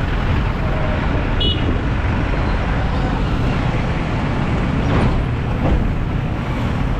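A car driving through city traffic: steady engine and road noise, with a brief high tone about a second and a half in.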